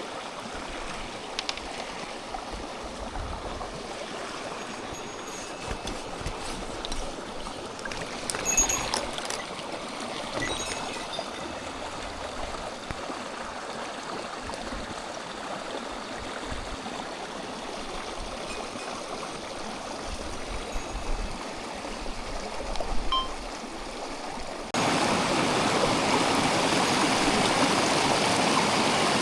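Mountain stream flowing steadily, with a few faint clicks and knocks about a third of the way in; near the end the water noise suddenly becomes louder.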